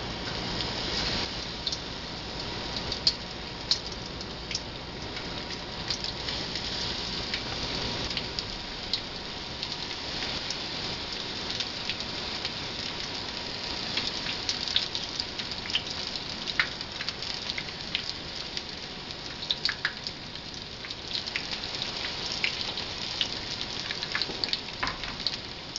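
Battered chicken pieces deep-frying in a skillet of hot oil: a steady sizzling hiss with frequent sharp pops and crackles.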